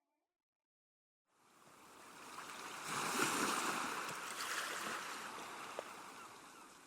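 A surf-like rush of noise, like an ocean wave, swelling in after a second of silence, peaking about three seconds in and slowly fading away.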